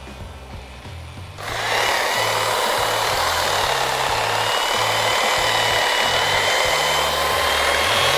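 Electric hedge trimmer starting about a second and a half in and then running steadily with a high whine as it cuts into a hedge.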